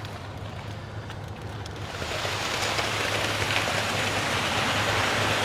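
Wet concrete rushing down a ready-mix truck's chute, a hissing flow that starts about two seconds in and grows steadily louder, over the steady hum of the truck's engine.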